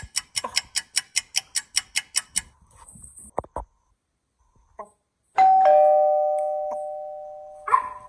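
Rapid, even ticking, about seven ticks a second, for the first couple of seconds; then, past the middle, a loud two-note ding-dong chime, high note then lower note, ringing out and slowly fading over about two seconds.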